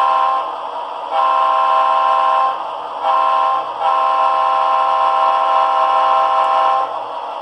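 Model-train sound decoder playing a Leslie S3L three-chime air horn recording through the locomotive's small speaker. It sounds four blasts: long, long, short, then a long final blast that cuts off near the end, the pattern of a grade-crossing signal.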